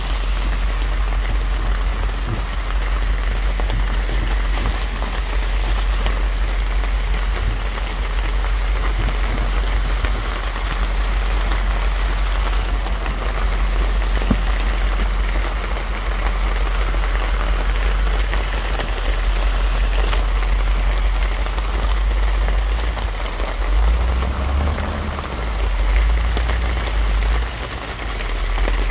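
Steady low rumble with an even hiss over it, from a farm vehicle in a strawberry field. The rumble wavers near the end.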